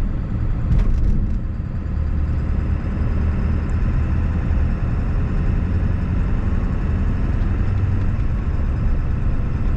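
1997 Ford F-350's 7.3-litre Power Stroke turbo diesel V8 running steadily while the truck drives along, heard from inside the cab.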